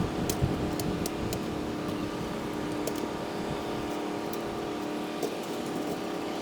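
Fast-forwarded harbourside ambience: a steady engine hum with scattered short clicks.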